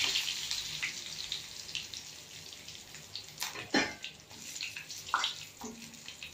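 Fresh curry leaves and fennel seeds spluttering in hot oil in a kadai. The sizzle dies away over the first couple of seconds into scattered crackles and pops. A spatula knocks against the pan about four seconds in.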